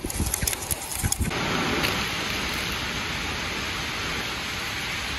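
A spoon clicking and scraping rapidly against a small bowl as a powdered spice mix is stirred, cut off after about a second by a steady rushing hiss that lasts to the end.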